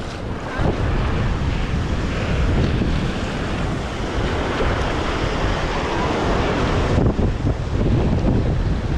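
Wind buffeting the microphone over small surf waves washing up the sand, a steady rushing noise with a heavy low rumble.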